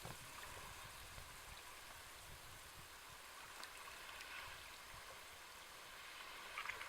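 Gentle Sea of Japan waves washing against the shore: a faint, steady watery hiss, with a few small clicks near the end.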